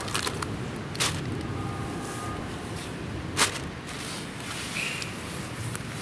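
Handling noises from a foil-sealed ration tin and camp gear: a few sharp clicks and knocks, the loudest about three and a half seconds in. Underneath is a steady low background of wind and river water.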